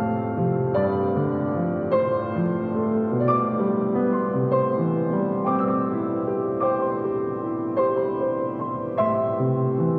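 Background music: a soft, slow piano piece with notes struck about once a second.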